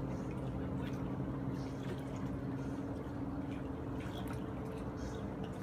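Lake water lapping and splashing lightly at the shore and dock, with a steady low hum underneath that fades a little after about two seconds.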